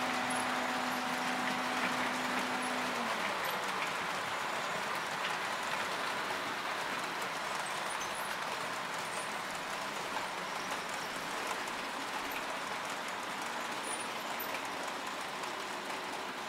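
Several HO-scale model trains running on a layout: a steady rolling clatter of small wheels on track, slowly fading, with a low steady hum that stops about three seconds in.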